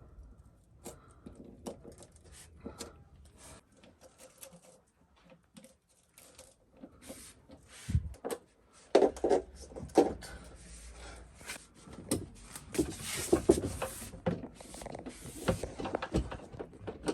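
Irregular clicks, knocks and rattles of parts and tools being handled during furniture assembly. They grow louder and busier about halfway through.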